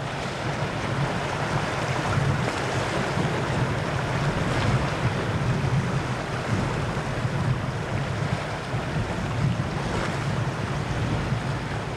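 Strong wind buffeting the microphone with a low rumble, over choppy lake waves washing steadily.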